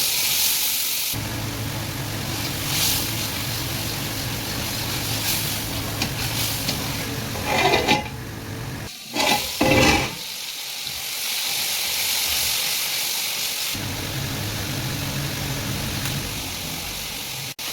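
Onion-and-spice masala with tomato puree sizzling and frying in hot oil in a pan as it is stirred. There are a few louder, brief bursts around eight and ten seconds in.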